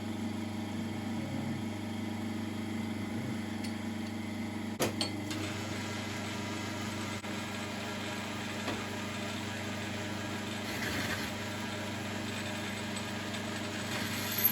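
9-inch South Bend lathe running steadily with a large boring head taking a horizontal boring cut in aluminium plate under automatic feed: an even mechanical hum, with a single click about five seconds in.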